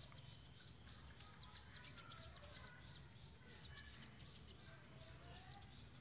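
Faint, rapid high-pitched chirping of birds, many short notes in quick succession, with a few softer sliding notes lower down.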